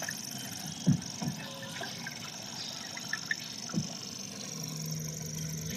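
Outdoor ambience with a steady high hiss, a few short faint calls scattered through, and a low steady hum near the end.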